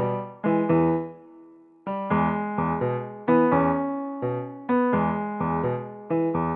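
Background music: a light keyboard tune of struck notes and chords that start sharply and fade away, with a short break about one and a half seconds in.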